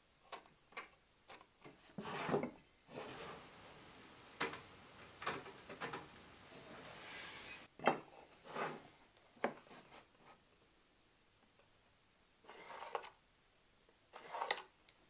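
Handling sounds on a plywood workpiece: light knocks and clicks as a small square and a steel rule are set against the wood, a longer stretch of rubbing in the middle, and two short pencil strokes scratching along the plywood near the end.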